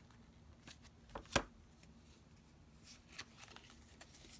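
Tarot cards being shuffled and handled, a few soft flicks and rustles of the cards with one sharper snap about a second and a half in.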